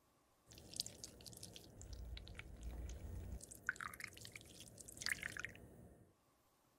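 Thick melted makeup mixture pouring and dripping from a small glass cup into the wells of a metal palette tin, with faint small ticks and drips. It starts about half a second in and stops after about six seconds.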